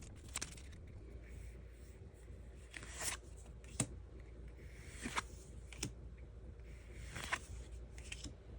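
Pokémon trading cards being flicked through one at a time from a freshly opened booster pack: a soft card swish or snap every second or so.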